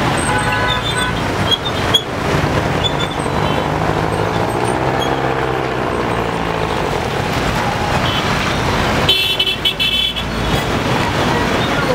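Road traffic: engines of passing cars and minibuses running, with short car-horn toots near the start and a cluster of toots about nine to ten seconds in.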